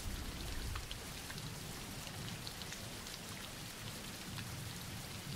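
Steady, faint rain: an even hiss with scattered individual drops ticking through it.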